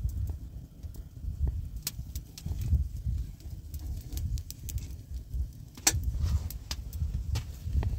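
Wood campfire crackling, with sharp pops and snaps now and then, under a strong, uneven low rumble of wind buffeting the microphone.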